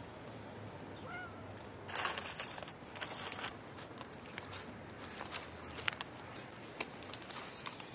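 Stray cats eating from foil trays on paving stones, with rustling and sharp clicks as a hand handles a foil tray and sets it down. A brief faint high call sounds about a second in.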